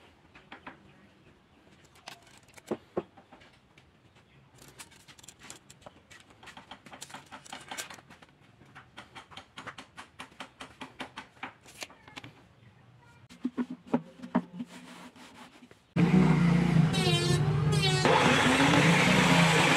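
Faint scattered clicks and taps of wood and a tape measure being handled. About three-quarters of the way in, the circular saw mounted under a homemade table saw switches on suddenly and runs loud and steady, with a wavering pitch for a moment after it starts.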